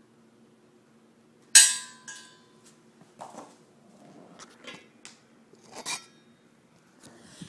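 Center punch marking hole locations on the steel top of a lathe stand: a sharp metallic strike with ringing about one and a half seconds in, then lighter clinks and taps and a second sharp strike near six seconds.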